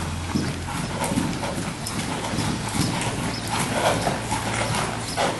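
Hooves of a ridden Dutch Warmblood (KWPN) gelding trotting on the sand footing of an indoor arena: a steady rhythm of soft thuds, about two to three a second.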